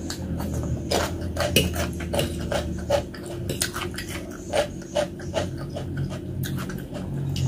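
Close-miked eating sounds: irregular wet mouth clicks and smacks while chewing noodles and bakso meatballs.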